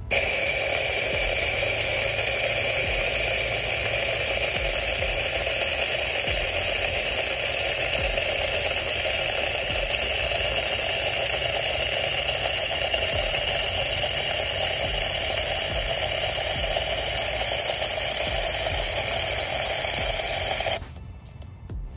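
Testors Wet Look Clear aerosol can held open, spraying steadily through a bendy straw into a taped glass jar as the paint is decanted: a loud, continuous hiss that cuts off sharply about a second before the end.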